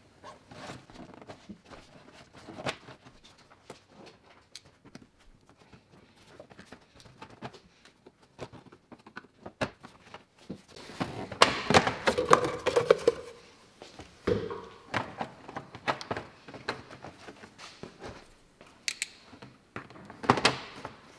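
Hand tools and plastic engine-bay parts knocking and clicking as an intake duct and cover are worked loose in a Mercedes W205 engine bay, with the engine off. The knocks are scattered, with a dense run of clatter about halfway through and another short burst near the end.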